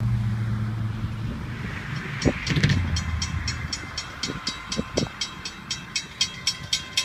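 Freight train of diesel locomotives and rack and intermodal cars passing: a low diesel engine drone fades in the first second or so. Then, from about two seconds in, the wheels click steadily over the rail joints, about four clicks a second.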